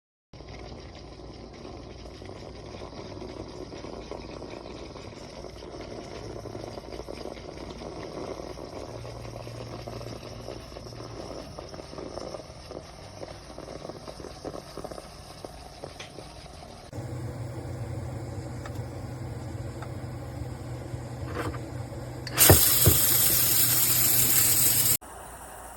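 Small steam espresso machine at work: liquid running with a steady low hum, which steps up louder about 17 s in. Near the end comes a loud blast of hiss for about two and a half seconds that starts and stops abruptly.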